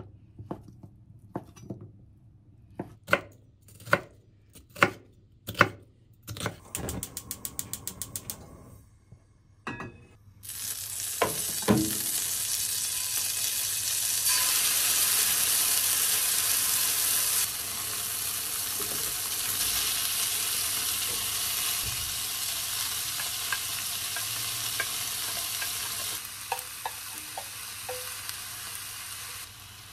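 Food frying and sizzling in a hot pan, starting suddenly about ten seconds in. Before that come a series of separate knocks, then a quick run of even clicks.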